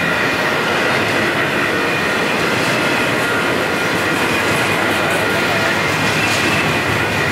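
Double-stack intermodal freight train rolling steadily through a grade crossing: a continuous rumble and clatter of the well cars' wheels on the rails, with a faint steady high squeal over it.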